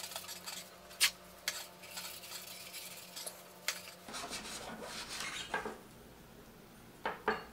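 Paper towel rubbing and crumpling against a plastic case fan and tabletop, with a few light clicks and knocks of small items being handled and set down, two of them close together near the end.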